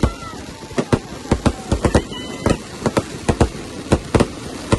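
Fireworks going off: a string of sharp firecracker bangs at irregular intervals, several a second, with a brief high whistle about two seconds in.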